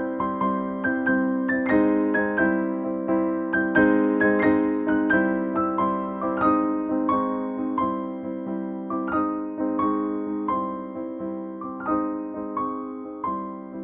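Instrumental background music: a quick run of keyboard notes, each fading fast, over steady held low notes.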